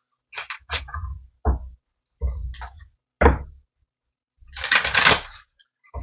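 A deck of oracle cards being shuffled and handled: a string of short rustles and knocks, with a longer shuffle near the end.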